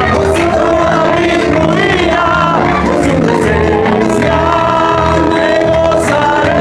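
Loud live worship music: a congregation singing together to an electronic keyboard, with sung melody over a repeating bass line.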